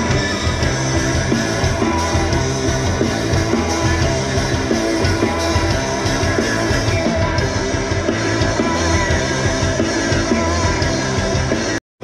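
Live rock band playing loud through a concert PA, with electric guitar and drums, recorded on a phone from inside the crowd. The sound cuts out for an instant near the end.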